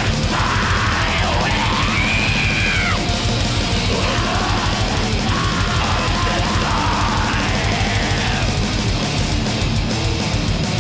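Black metal band playing live: loud distorted guitars, bass and fast drums in a dense, steady wall of sound, with harsh screamed vocals coming in over it several times.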